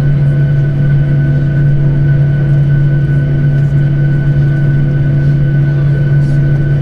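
Jet airliner's engines running steadily, heard inside the passenger cabin during taxi: a constant low drone with a fainter, thin high tone held above it.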